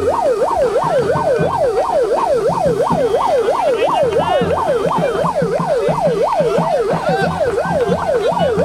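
Electronic siren sounding a fast up-and-down yelp, about three sweeps a second, loud and unbroken.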